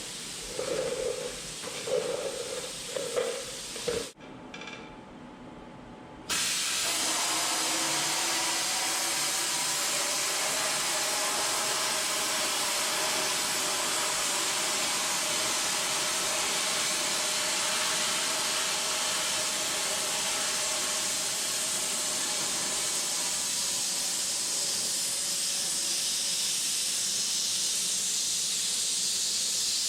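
Cutting torch hissing steadily as it burns an old steel pin sleeve out of a loader boom. The hiss starts suddenly about six seconds in, after a brief quieter stretch, and carries a faint steady tone.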